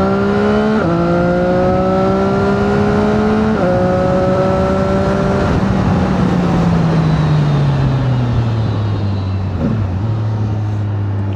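CFMoto 675NK's 674 cc three-cylinder engine accelerating hard through the gears. The pitch drops at two upshifts, about a second in and near four seconds in, and climbs again after each. Then the rider comes off the throttle and the engine note falls away to a steady lower run, over wind noise.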